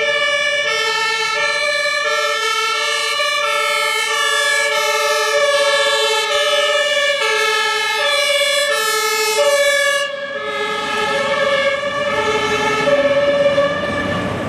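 Several German two-tone emergency sirens (Martinshorn) from a fire engine and an ambulance, including a compressed-air horn, sounding together and out of step. Each alternates between a high and a low tone held for under a second. About ten seconds in the sharp top of the sound falls away and the vehicles' engine and road noise grows as they drive past.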